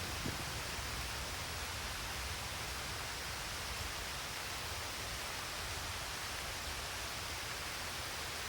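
Steady rainfall, an even unbroken hiss with no single drops or thunder standing out.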